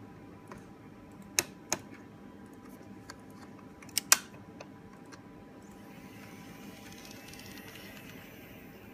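Kato N scale model locomotive running along the track with a low steady whir, broken by four sharp clicks: a pair about a second and a half in and another pair about four seconds in.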